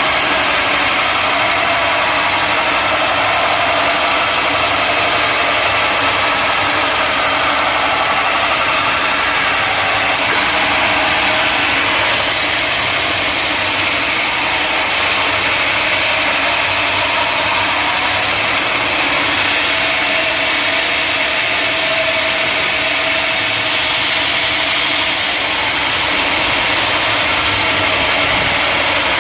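Sawmill machinery running, a loud, steady mechanical noise that holds unchanged throughout.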